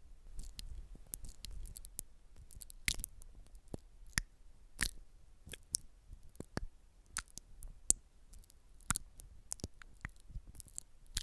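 Close-miked ASMR trigger sounds: a run of crisp, irregular clicks and snips, roughly two or three a second, over a faint low rumble.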